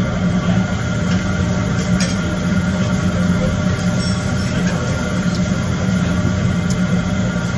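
Steady low mechanical drone with a constant hum, like a running fan or motor, and a few faint clicks about two and four seconds in.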